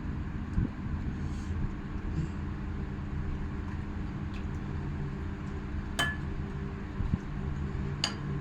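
Dishes and cutlery clinking during a meal: two sharp ringing clinks about six and eight seconds in and a couple of duller knocks, over a steady low hum.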